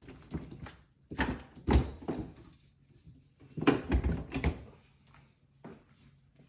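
Irregular knocks and clatters in two bursts, about a second in and again around three and a half seconds in, like doors or drawers being handled, over a faint low hum.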